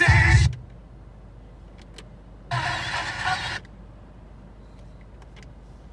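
Music from the car stereo cuts off about half a second in. After that there is a faint steady low rumble inside the car cabin during an automatic car wash, with a few light clicks and a one-second burst of rushing noise about two and a half seconds in.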